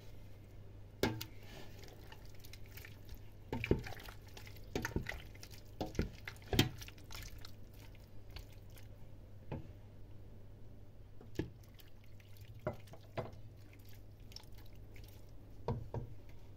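A wooden spoon stirring raw cubes of pork fat in a metal pot: scattered wet squelches and knocks of the spoon against the pot, most of them in the first half, over a steady low hum.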